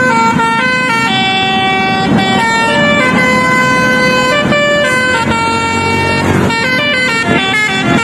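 A tour bus's telolet basuri musical horn plays a tune: several horn tones sound together and step from note to note, each held a fraction of a second to about a second, over a low rumble of engines.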